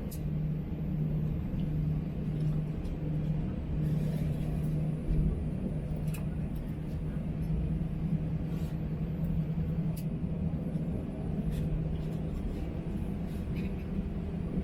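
Airliner cabin noise aboard an Airbus A321 on the ground before takeoff: a steady low rumble with a constant hum, with a few faint clicks and rattles.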